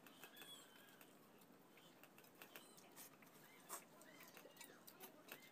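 Quiet eating by hand from steel plates: faint, scattered clicks and smacks of fingers on rice and plates and of chewing, with a few faint high chirps.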